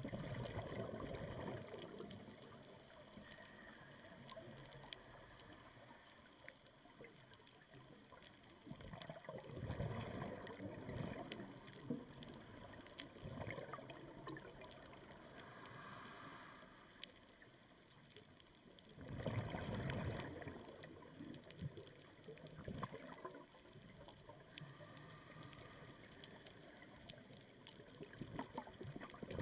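Scuba diver breathing through a regulator underwater: bubbling exhalations about every ten seconds, each followed a few seconds later by a short hissing inhale.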